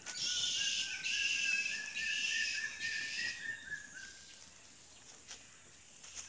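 Shrill, high-pitched animal calls: a steady chirring with a thin, wavering whistle running through it for about four seconds, then fading away.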